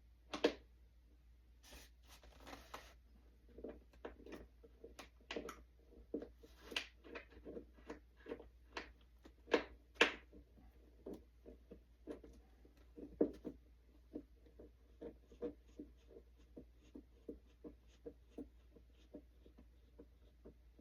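Hand screwdriver driving small screws into a model plane's tail section: a run of short clicks and taps as the driver is turned and regripped, settling into light, even ticks about two or three a second near the end.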